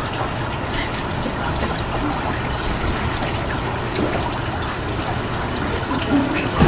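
Steady trickle of water from a stone fountain basin.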